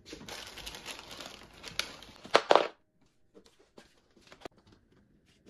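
Crinkling, rustling handling noise, like plastic or paper being crumpled, ending in two sharp knocks, then quiet with a few faint clicks.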